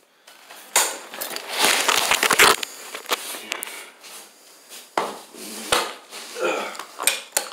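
Irregular clattering, scraping and knocking as tools and broken concrete are handled around the hole, loudest in a stretch of rough scraping about two seconds in.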